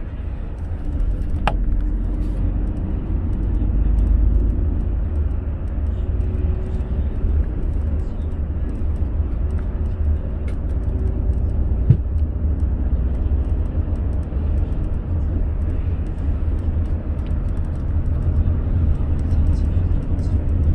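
Car driving on an expressway: steady low road and engine rumble with tyre hiss, and a couple of brief clicks.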